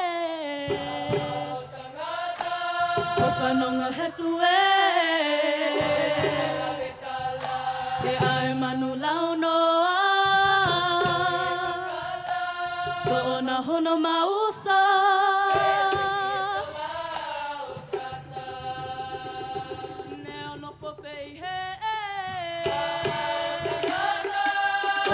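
A girls' choir singing a Pacific Island song together, in held notes that slide between pitches, with percussion strokes underneath.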